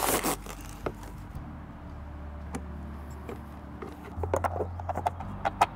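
Small clicks and taps of long-nose pliers working at the plastic hinge pin of a roof skylight's lid, most of them in the last second and a half. A brief rushing noise at the start and a low steady hum underneath.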